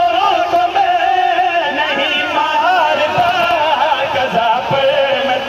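Several men singing a qaseeda refrain together into microphones, in long, wavering held notes.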